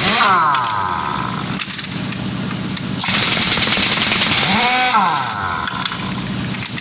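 Pneumatic impact wrench working the lug nuts of a truck wheel: it spins down at the start, then a loud run of hammering about three seconds in lasts some two seconds and ends with its pitch swooping up and back down. A steady low hum runs underneath.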